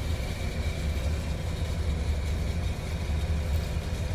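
Diesel engine of a MAN crane truck running steadily while it powers the truck's crane lifting a heavy armoured-car hulk, with a faint steady whine above the low rumble.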